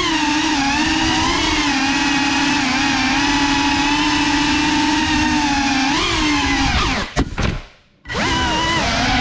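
Small FPV drone's electric motors whining, the pitch rising and falling with the throttle. About seven seconds in the whine breaks off with a few sharp clicks and stops for under a second, then the motors spin up again.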